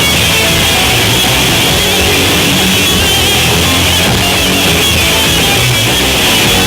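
Loud live heavy rock band playing, distorted electric guitars over bass and drums.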